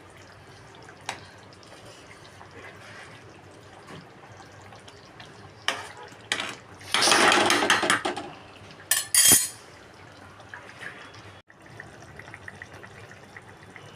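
Dishes and cutlery clinking and knocking now and then, with a loud rushing noise lasting about a second, some seven seconds in.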